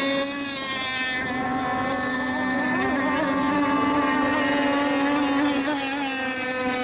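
Several radio-controlled racing boats running laps together, their small motors making a steady high whine in several overlapping pitches that drift slightly up and down.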